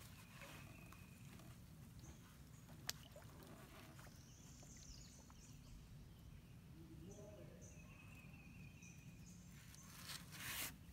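Near silence: faint outdoor river ambience with a few faint high bird chirps, one sharp click about three seconds in, and a brief rush of noise near the end.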